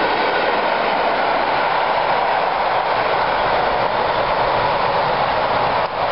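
Freight train hauled by a Class 92 electric locomotive passing at speed: the loco and its wagons' wheels running on the rails make a loud, steady noise.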